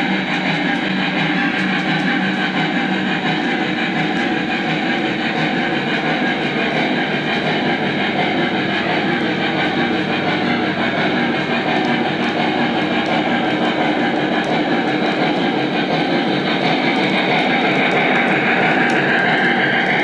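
Lionel Legacy three-rail O-gauge model of a Norfolk & Western Y6b 2-8-8-2 steam locomotive running on track, a steady rumble of wheels on rail. Near the end a tone slides down and back up.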